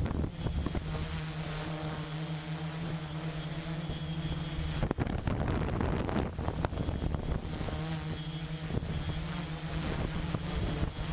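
Engine of construction machinery running with a steady droning hum. The hum drops away for a few seconds about five seconds in, then returns.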